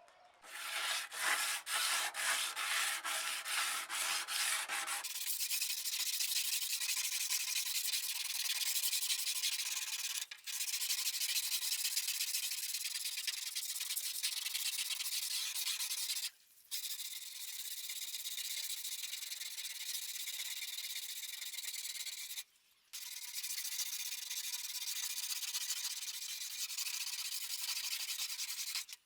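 Abrasive sanding on the metal of an old sword: quick back-and-forth strokes for about five seconds, then a steady scratchy hiss, broken by a few brief gaps.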